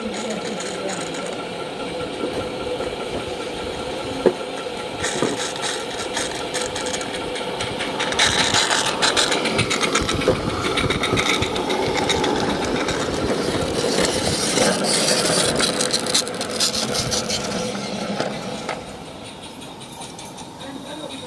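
A 16mm-scale garden railway locomotive and its train running over the track on an overhead bridge, a rapid clattering beat that grows louder as it approaches, is loudest as it passes overhead and falls away near the end. A single sharp click comes about four seconds in.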